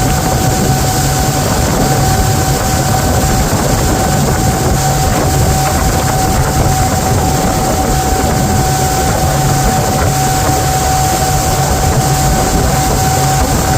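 Motorboat engine running steadily while towing a rider, with a constant whine over it and a haze of wind and water noise.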